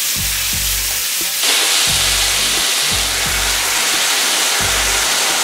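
Stir-fried black pepper beef sizzling on a preheated cast-iron sizzling plate: a steady hiss that gets louder about a second and a half in. Background music with a deep, repeating bass line plays underneath.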